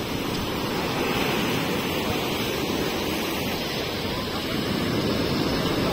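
Sea surf breaking and washing up a sandy beach: a steady rush of waves with no single crash standing out.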